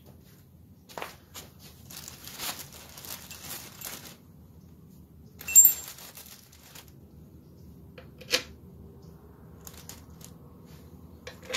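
Handling noise of metal engine parts and tools: a few seconds of rustling, then a sharp metallic clink that rings briefly about five and a half seconds in, and single knocks near eight seconds and near the end.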